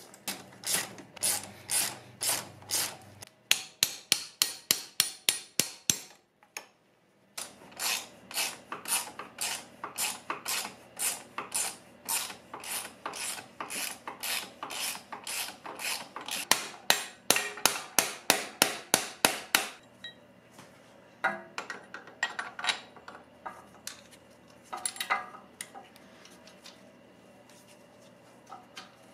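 Ratchet wrench being worked back and forth on a bolt, giving an even run of rasping clicks, about three or four strokes a second, with a short break about six seconds in. About two-thirds through the ratcheting stops, and only faint, scattered clicks of handling the part remain.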